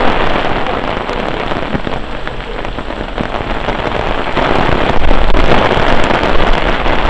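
Heavy rain pelting down on a wet street, a dense hiss of drops that swells louder about halfway through.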